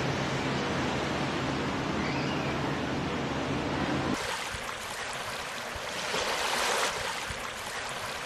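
Sea water washing, a steady rushing wash with a low steady hum under it; about four seconds in it changes abruptly to a lighter, hissier wash that swells up briefly a little later.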